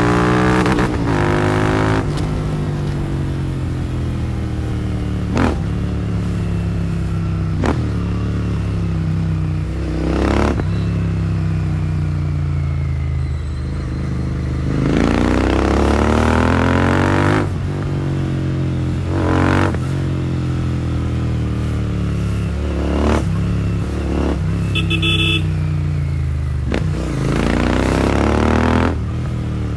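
Royal Enfield Continental GT650's 648 cc parallel-twin engine through a Powerage short cone aftermarket exhaust, under way. The exhaust note climbs as the bike pulls and drops back at each gear change or roll-off, many times over. The hardest pulls come about 15 s in and again near the end.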